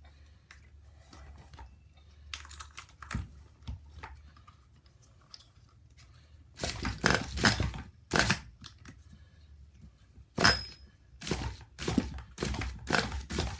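Nitro RC engine's recoil pull-start cord yanked over and over in quick zipping pulls: a cluster of pulls, a pause, one more, then a fast run of about five. The engine does not catch, and the pull start with its sticky one-way bearing keeps giving trouble.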